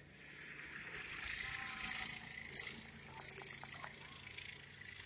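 Crunching and rustling of deep snow as dogs push and dig through it, swelling about a second in, with a sharp click about two and a half seconds in and a few lighter clicks after it.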